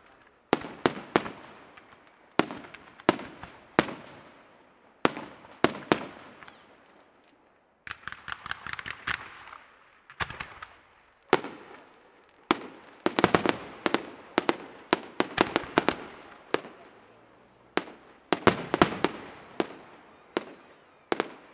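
Aerial firework shells bursting in rapid salvos: sharp bangs in clusters of two to five, each trailing off, with a stretch of dense crackle about eight seconds in.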